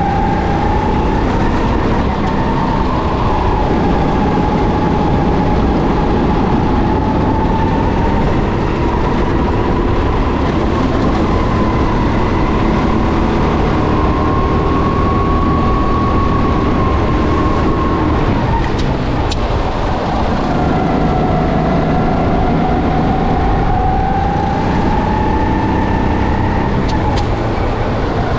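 Kart engine running hard at high revs, its pitch slowly climbing and falling with the throttle. It eases off and drops in pitch for a few seconds past the middle, then revs back up.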